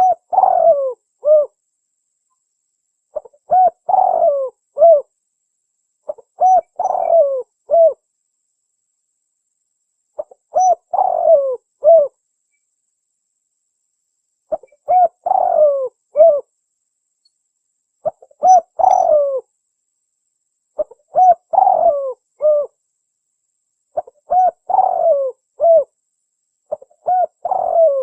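Spotted dove (tekukur) cooing: a short phrase of several low coos, repeated nine times about every three seconds.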